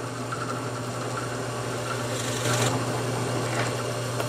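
Electric drill running steadily, boring a 1/2 inch Forstner bit into a pine push stick, with bursts of cutting noise about two and a half seconds in.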